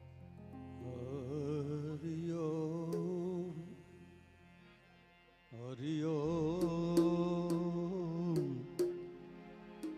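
Devotional bhajan music: a slow, ornamented melody with wide vibrato in two long phrases over a steady drone. A few sharp clicks come during the second phrase.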